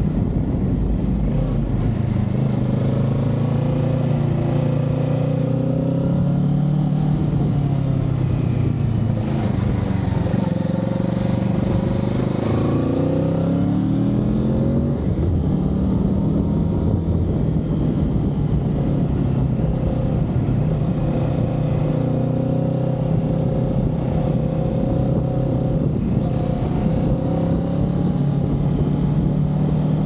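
Kawasaki Z650's parallel-twin engine running under way on the road, mostly at a steady pitch, with the revs changing about halfway through.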